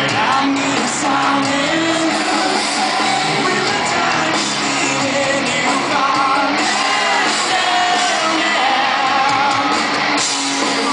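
Rock band playing live in a hall, with electric guitars, drums and sung vocals, and people in the audience singing along near the recorder.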